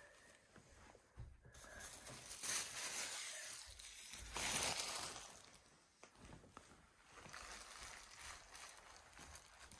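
Rustling and crinkling of packaging being handled and cleared away, in irregular swells, loudest in two stretches near the start and middle.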